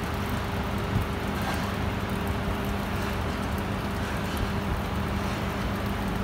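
Steam locomotive TCDD 56548 standing with its fire burning to raise steam, giving a steady low rumble and hiss with a constant hum.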